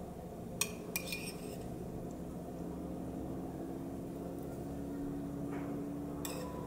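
A metal spoon clinking against a ceramic bowl as stuffing is scooped out and pressed into baked potato skins: a few sharp clinks about half a second to a second in, another near the end, over a steady low hum.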